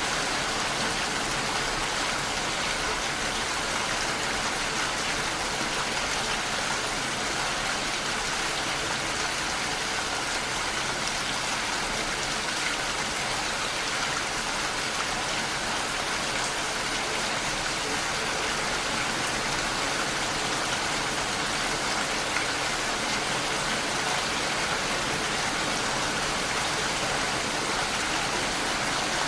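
Steady rainfall, a continuous even hiss of falling rain.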